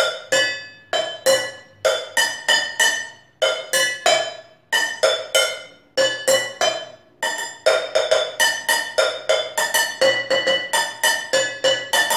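Upturned cooking pots and frying pans struck with a pair of thin sticks in a quick improvised rhythm, each hit ringing briefly at a clear pitch. The beats come in short groups with a few longer ringing notes near the middle, then turn faster and denser in the second half.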